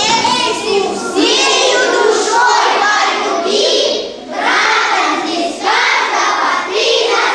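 A group of children singing together in chorus, in short phrases with brief breaths between them.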